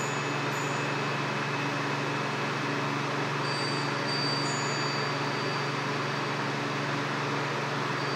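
Steady hiss and low hum in a quiet pause, with faint high chimes ringing briefly at the start and again a few seconds in.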